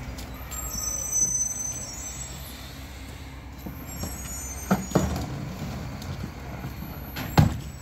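Mack GU garbage truck with a Leach rear-loader body running at low idle with a steady diesel hum, with a brief high brake squeal about a second in. Two sharp bangs come about five seconds in and near the end, the second the loudest, as trash and barrels are thrown and tipped into the rear hopper.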